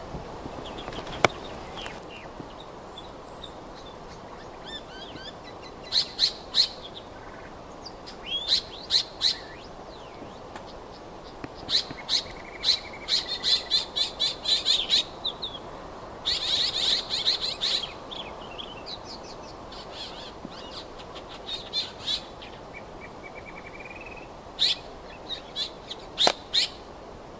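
Great woodswallow calling: scattered bursts of quick, sharp notes, several runs lasting a second or more, with pauses of a few seconds between them. A single sharp click about a second in.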